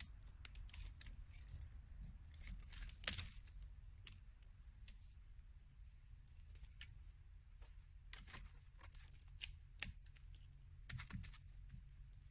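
Faint scattered clicks and snaps of dry wood as a thin sapling stick is handled and cut with a knife, with one sharper crack about three seconds in and a cluster of snaps later on. A low steady rumble runs underneath.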